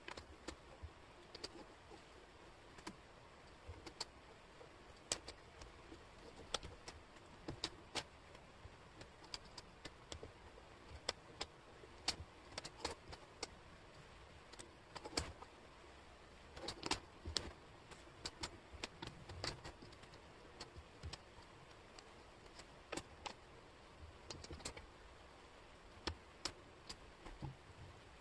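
Small wooden jigsaw puzzle pieces clicking and clacking against the tabletop and each other as hands pick them up, set them down and fit them together. The taps come irregularly, at times several a second, over a faint steady hiss.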